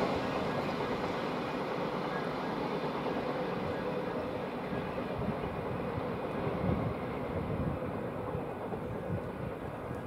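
A freight train hauled by Class 66 diesel locomotives moving away down the line. The sound of engine and wheels on rail fades, then holds at a low level.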